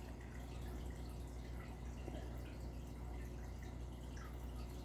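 Aquarium water trickling in many small drips and bubbles over a steady low hum.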